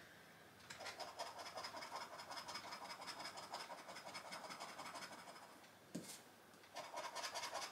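Scratching the coating off a £1 scratch card: faint, rapid rasping strokes for about four seconds, a short pause with a single tap, then more scratching near the end.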